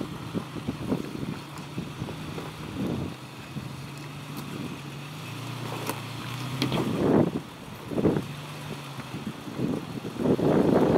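Toyota Tacoma's engine running at low revs as the truck crawls over rocks, with a few sharp clicks from stones under its Toyo Open Country R/T tyres. Gusts of wind hit the microphone several times, strongest near the end.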